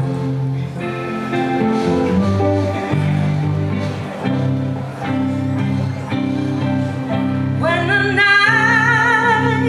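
Live band playing a song's intro, guitar chords over a steady low bass line. Just under 8 seconds in, a female vocalist comes in singing with a wide vibrato.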